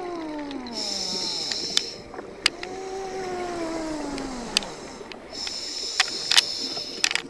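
Underwater sound of a scuba diver's regulator: two hissing inhalations, while a low droning tone glides downward twice, with scattered sharp clicks.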